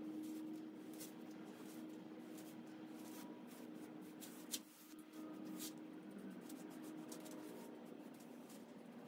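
Faint scratchy strokes and soft taps of a foam brush spreading finish over the wooden chest's panel, with a sharper tap about halfway through, over a steady low hum.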